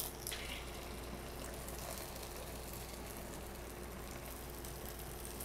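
Faint, steady sizzle of a potato paratha frying in a little oil in a nonstick pan, its freshly flipped side cooking.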